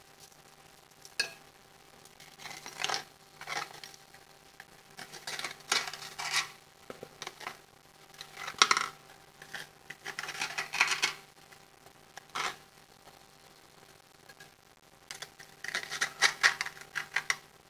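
A kitchen utensil clinking and scraping against a pot or dish in short scattered clatters as cooked ramen noodles are scooped into taco shells. A faint steady hum runs underneath.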